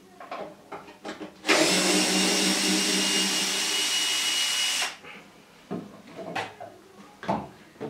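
Cordless drill-driver running steadily for about three and a half seconds as it backs a wood screw out of a board panel, starting and stopping suddenly. Light clicks and knocks of handling come before and after the run.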